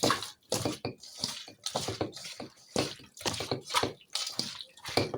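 Wet spice mixture being mixed by hand in a bowl: a run of irregular wet squelches, slaps and light clatters.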